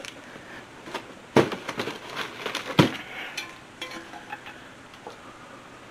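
A metal roasting pan and its glass lid being handled: two sharp knocks about a second and a half apart, among lighter clicks.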